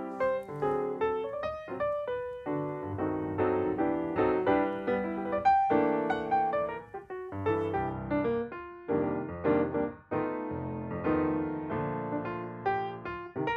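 Background music of piano notes played in quick succession, with no workshop sounds standing out.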